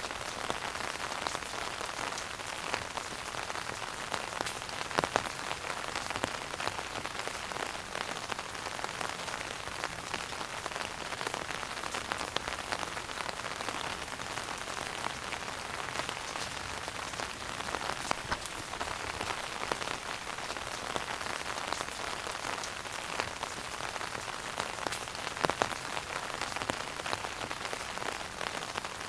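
Wood fire burning in a fireplace: a steady hiss of flame with dense small crackles, and a couple of louder pops about five seconds in and near the end.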